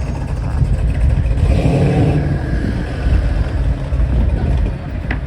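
Street traffic: a steady low rumble of vehicles, with one passing close and louder about one and a half to two seconds in.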